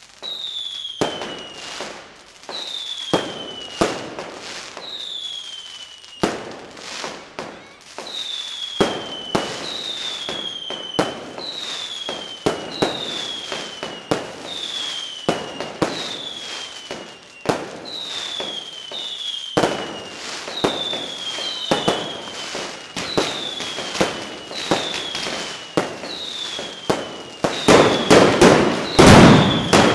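Mascletà firecrackers going off as sharp bangs about once a second, each followed by a falling whistle. About two seconds before the end they build into a much louder, dense barrage of rapid bangs and crackling.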